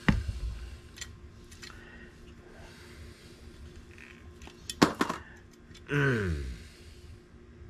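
Sharp metallic clicks and knocks from handling a motorcycle front brake caliper and the pliers clamped on it: a loud click with a thud at the start, another about a second in, and a quick cluster of clicks near five seconds. About six seconds in comes a short groan from the man that falls in pitch.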